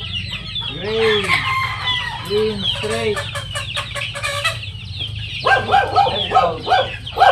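Gamefowl chickens calling: many short, high, falling chirps, a few low rising-and-falling calls in the first half, then a loud, rapid run of clucking calls from about five and a half seconds in.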